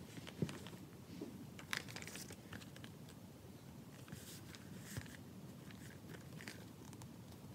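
Leather traveler's notebook covers being handled: faint rustling and scattered light taps and clicks as they are picked up and turned over, the sharpest click about half a second in.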